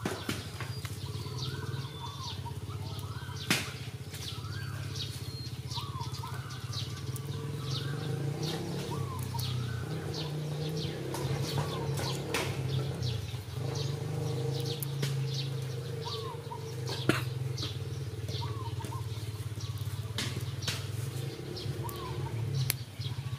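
A bird calling over and over, a short call about every two seconds, with scattered sharp clicks and a steady low hum underneath.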